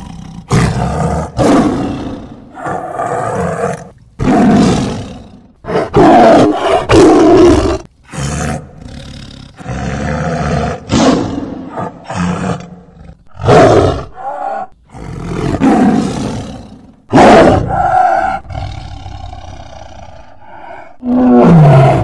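A tiger roaring over and over: a long string of short, loud roars and growls with brief pauses between them.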